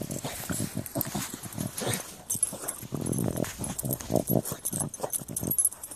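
Short-nosed dog digging in sand with its nose and front paws, making a fast, irregular run of snuffles and scrapes.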